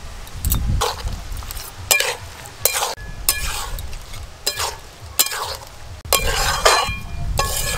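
A metal spatula stirring and scraping a thick spinach curry in a metal kadai, with about ten irregular scrapes and clinks against the pan over a low sizzle from the cooking food.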